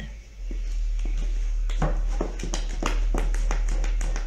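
Wooden spoon beating thick cake batter in a stainless steel bowl. From about two seconds in it makes a quick run of knocks and scrapes against the bowl, over a steady low hum.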